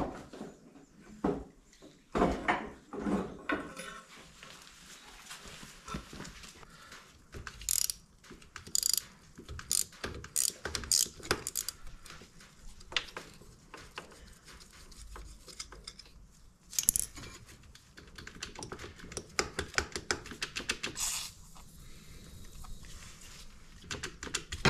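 Hand tools and bolts clinking and clicking in irregular bursts as bolts are worked loose around an ATV's engine and frame, with some ratchet-like clicking.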